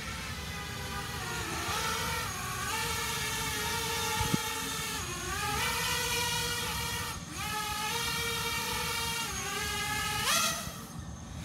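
Hexacopter's six BrotherHobby 2306 2450KV brushless motors whining in flight, the pitch dipping and climbing again several times as the throttle changes. There is a single sharp thump about four seconds in and a quick rising surge near the end.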